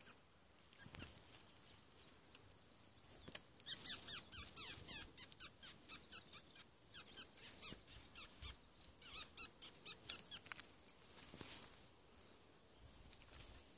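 A mouse squealing in distress as a racer snake holds it: a rapid series of short, high-pitched squeaks, several a second, that starts a few seconds in, is loudest at first and dies away after about seven seconds.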